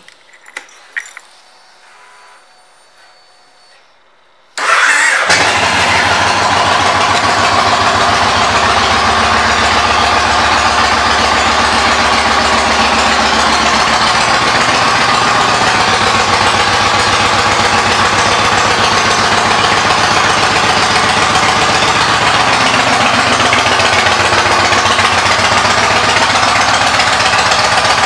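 A few light clicks, then about four and a half seconds in the Yamaha Raider's 1854 cc air-cooled V-twin fires up and settles into a steady, loud idle through its aftermarket Freedom pipes exhaust.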